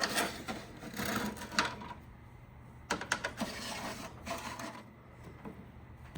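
Irregular clicks and short rattling, rustling handling noises over a faint steady low hum, busiest in the first couple of seconds and again around three to four seconds in.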